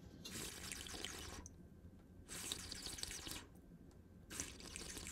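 Three separate bursts of faint, wet liquid sound, each about a second long.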